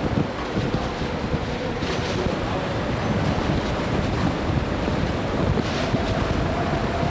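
Wind buffeting the microphone on the deck of a ferry under way, over the rushing of the sea; a faint steady tone sits underneath in places.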